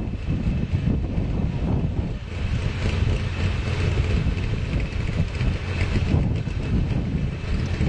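Trophy truck engine running steadily at a standstill, with wind on the microphone.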